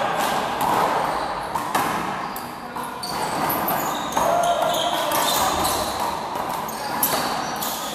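A small rubber handball smacked by hands and rebounding off the wall and floor during a rally, several sharp smacks a second or two apart, with sneakers squeaking on the court floor, echoing in a large indoor hall.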